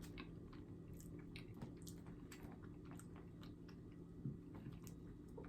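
Faint chewing with scattered soft mouth clicks and small crackles, someone eating a meal, over a low steady hum.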